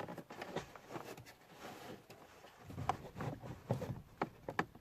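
Light plastic clicks and knocks as the car door's window switch unit is unclipped and handled, coming thicker in the second half.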